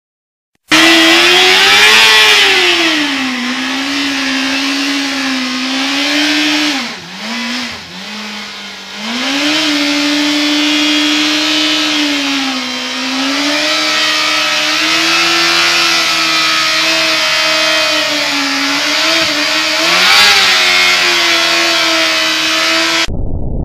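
2003 Yamaha YZF-R6's inline-four engine held at high revs through a burnout, its rear tyre spinning on tarmac; the revs sag and pick back up twice about seven to nine seconds in, then hold high again. The engine starts suddenly just under a second in and cuts off abruptly near the end to a duller, low rumble.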